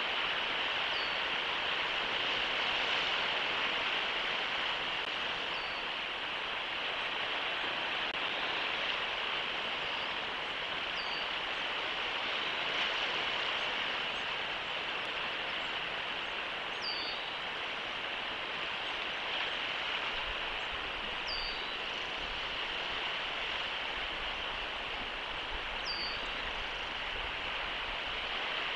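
Steady rushing outdoor noise of wind and surf. Over it, a short, high, falling chirp sounds six times, about every four to five seconds.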